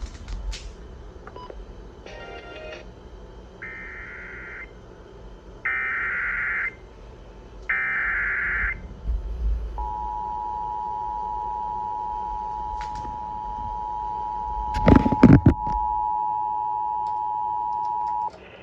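Emergency Alert System activation on FM radio for a severe thunderstorm warning: three roughly one-second bursts of buzzy, screeching SAME header data, followed by the two-tone attention signal, two steady tones (853 and 960 Hz) held together for about eight seconds. A cluster of loud crackles cuts through the tone near the end.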